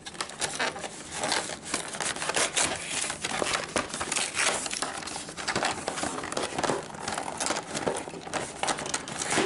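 Cardboard and plastic packaging of a Magic: The Gathering Commander deck being opened by hand and its wrapped contents pulled out, crinkling and rustling in a dense run of irregular crackles.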